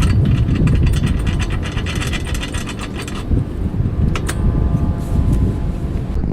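Hand ratchet wrench clicking rapidly as bracket bolts are run in for the truck side step. It stops about three seconds in, followed by a single metal clink that rings briefly.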